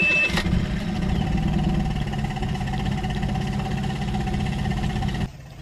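Suzuki 15 horsepower outboard motor catching on a key start and settling into a steady idle. A high steady tone stops right at the start, and the sound drops sharply near the end.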